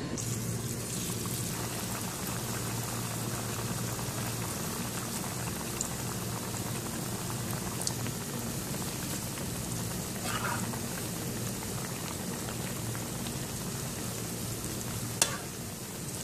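Unnakkaya, stuffed plantain dumplings, deep-frying in hot oil: a steady bubbling sizzle over a low hum, with one sharp click about a second before the end.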